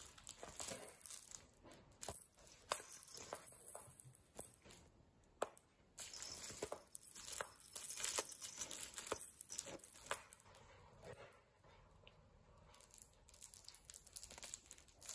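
A cat clawing, biting and kicking at a coarse fabric carrot toy with a sisal top: irregular scratchy rustling with scattered sharp clicks.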